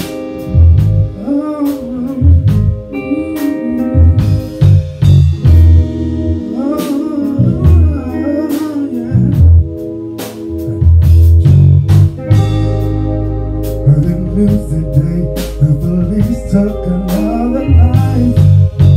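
Singing into microphones over band music with guitar, bass and drums. The voice comes in phrases over held chords and a steady beat.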